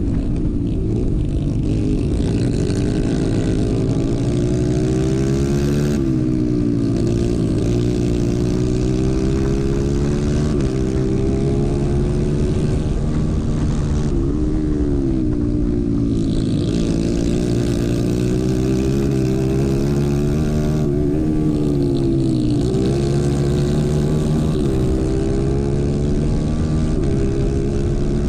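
Racing kart engine at full throttle on a dirt track, recorded onboard. The engine note is steady and high, dipping briefly several times as the driver lifts for the turns and climbing back as it pulls out of them.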